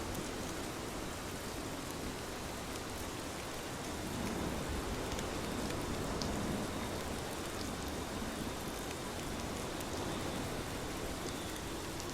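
Steady rain falling, an even hiss with scattered drops ticking on surfaces, swelling slightly for a few seconds midway.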